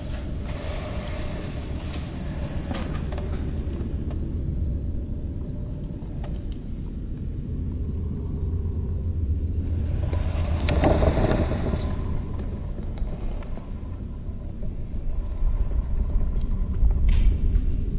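Wind buffeting the microphone: a steady low rumble, with louder gusts of noise near the start and again about ten seconds in.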